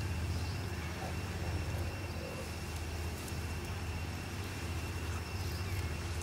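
Steady low hum with a thin, constant high-pitched tone above it, over a steady background hiss.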